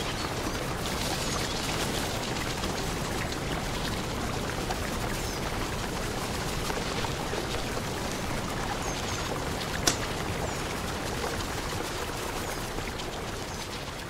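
Steady rushing of a mountain river mixed with a crackling campfire, with scattered small pops and one sharp pop about ten seconds in.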